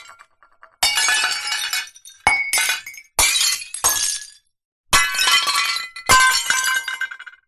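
Crockery being smashed, about six separate breaks in a row. Each is a sharp crash followed by pieces jangling and tinkling as they scatter, with short pauses between breaks.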